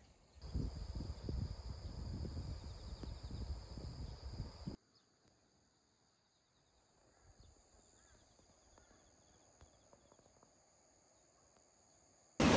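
Crickets or other insects chirping steadily in a high, pulsing drone. For the first few seconds a louder, uneven low rumble with scattered knocks lies over it, cutting off abruptly about five seconds in.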